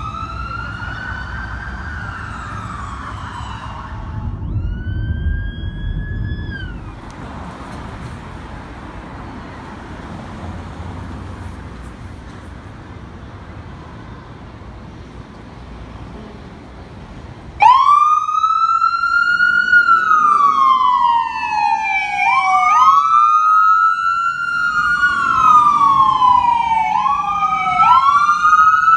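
Electronic emergency-vehicle sirens. First, a wail fades as a passing fire apparatus moves off, leaving traffic rumble. About 17 seconds in, a fire department ambulance's siren starts abruptly and close by, wailing in slow sweeps that rise quickly and fall slowly over a few seconds, with a second siren layered on top.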